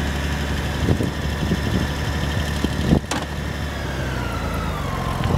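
Four-wheeler (ATV) engine just started and running with a steady low drone, its whine sinking in pitch over the last couple of seconds; a single sharp knock about three seconds in.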